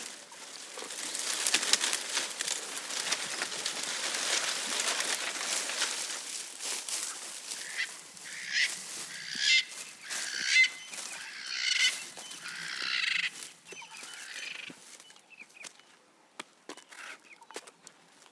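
Rustling and crackling of leafy branches as a giraffe browses for the first several seconds, followed by about six short bird calls spaced a second or so apart.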